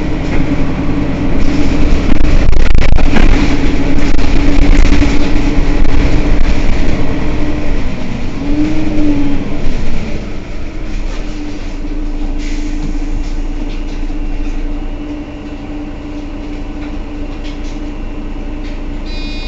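Mercedes-Benz Citaro city bus's rear-mounted engine running while the bus stands, a loud low rumble with a steady whine over it. The pitch briefly rises and falls at around nine seconds, and about ten seconds in the sound drops to a quieter, even idle.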